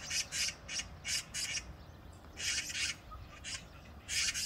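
Oriental magpies and azure-winged magpies squabbling over perches on a power line: quick series of harsh, raspy calls, with a short lull around the middle before the calling picks up again near the end.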